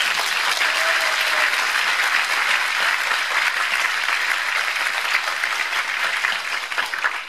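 Audience applauding, a dense and steady clapping that eases off near the end.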